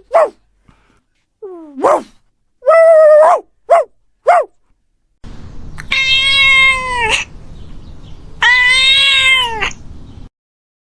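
Domestic cats meowing: a string of short meows, then two long drawn-out meows.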